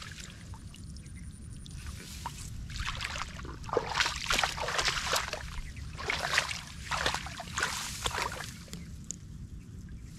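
Water splashing and sloshing in shallow field water, in an irregular run of splashes from about two to eight and a half seconds in, over a steady low rumble.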